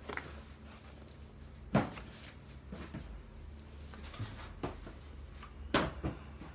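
Objects being handled and set down by hand: a handful of short knocks and clunks, the loudest about two seconds in and two more close together near the end, over a steady low hum.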